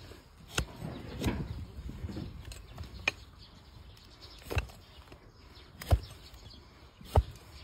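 A large hoof-trimming blade cutting through a donkey's hoof horn and knocking against the wooden stool beneath it. There are about five sharp knocks at uneven intervals, one to two seconds apart.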